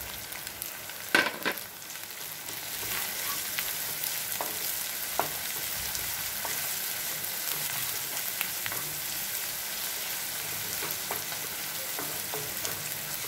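Onion, green chillies and curry leaves sizzling in oil in a non-stick kadai, stirred with a wooden spatula, with scattered small scrapes and ticks. There are two sharp knocks about a second in, and the sizzle grows a little louder from about two and a half seconds.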